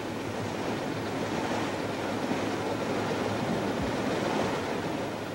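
Steady rush of wind and sea on an open ship's deck, with wind blowing on the microphone.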